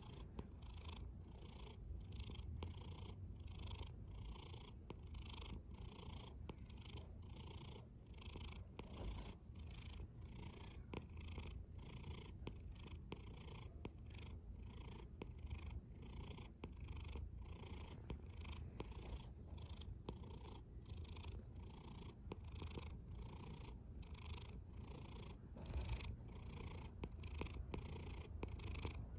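Domestic cat purring steadily in a soft, even rhythm, pulsing about twice a second.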